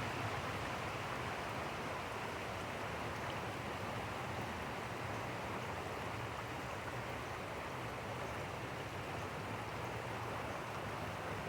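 Steady rushing of a fast-flowing stream, high enough to be carrying logs downstream.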